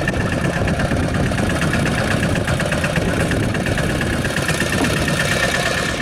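Fishing boat's engine idling steadily with a fast, even chugging.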